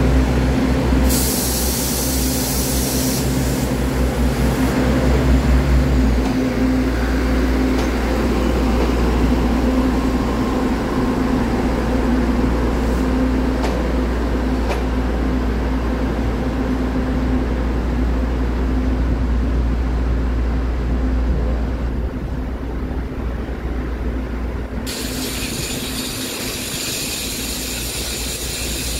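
Three-car Taiwan Railway DRC1000-series diesel railcar set pulling away: a steady diesel engine drone with the rumble of wheels on rail, growing a little quieter after about twenty seconds. A hiss comes in briefly near the start and again near the end.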